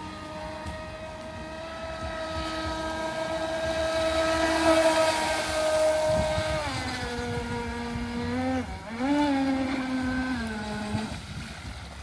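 Electric motor and propeller of a 960 mm RC yacht on a 4S LiPo, whining at speed as the boat runs over the water, with a hiss of spray. It is loudest about five seconds in. The pitch drops about two-thirds of the way through, dips and comes back up briefly, then the motor stops about a second before the end.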